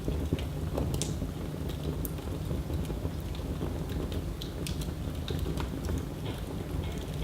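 Wood fire burning in a fireplace, with irregular sharp crackles and pops over a steady low rumble of the flames.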